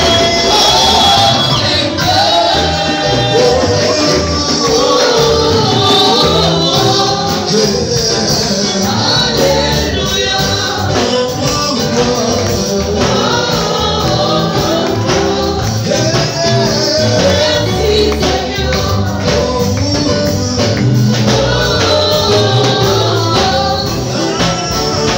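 A congregation singing a gospel worship song together, many voices at once, over a live band with a steady drum and percussion beat.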